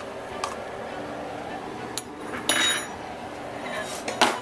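Kitchen utensils knocking and scraping against a frying pan and a plastic tub as chopped parsley is added and stirred into a chicken mixture: a few scattered knocks, with the sharpest near the end.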